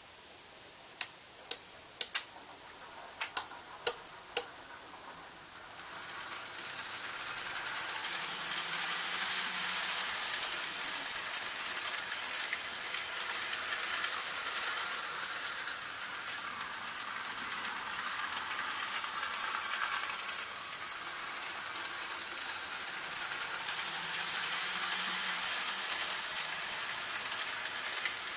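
About eight sharp clicks in quick succession from the model railway's control gear, relays and turnout point motors switching. Then an N gauge analog model train running: a steady rattle of its motor and wheels on the track that starts about six seconds in and swells twice as the train passes near.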